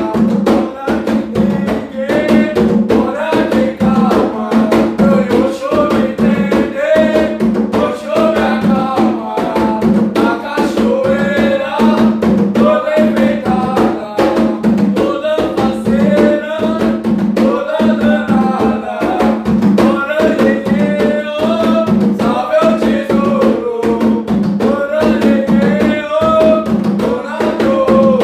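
Two atabaque hand drums struck with bare hands in a steady, driving rhythm, with male voices singing a cantiga over the drumming.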